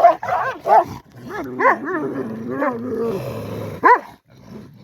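A dog whining in a run of short cries that rise and fall in pitch, with a low growl around three seconds in and one sharp yelp about four seconds in.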